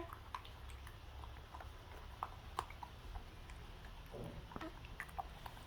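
Baby monkey chewing and eating food, faint irregular small wet mouth clicks a few times a second.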